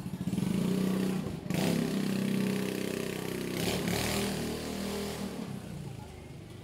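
A motorcycle engine running past with its pitch rising and falling as it revs, dipping briefly about one and a half seconds in and fading near the end.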